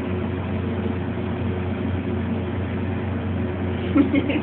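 Steady low machine hum with a faint constant tone over a background hiss, with a short laugh or voice sound near the end.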